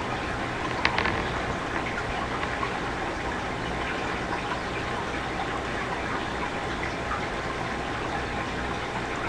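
Steady background hiss of room noise picked up by a computer microphone, with a couple of sharp mouse clicks about a second in.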